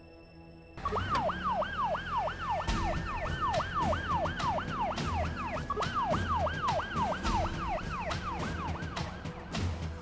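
Emergency vehicle siren sounding in a fast repeating yelp, each cycle a quick falling sweep, about three a second. It starts about a second in and dies away near the end, over quiet background music.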